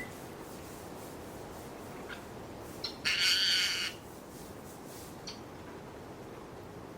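A Timneh parrot gives one harsh squawk lasting about a second, about three seconds in, with a couple of faint clicks around it.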